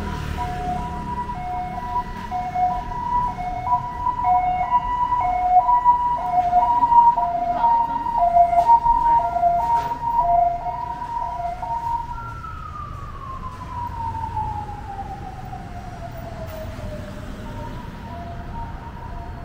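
Emergency vehicle siren sounding a hi-lo two-tone pattern, swapping between the high and low note about every half second and growing louder. About twelve seconds in, the two-tone pattern breaks off into one long falling glide, and it comes back fainter near the end.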